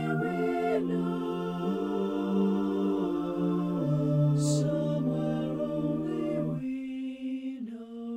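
SSATB a cappella choir singing slow held chords that change every second or two, with a sung 's' about four and a half seconds in. Near the end the texture thins to a few voices holding a note.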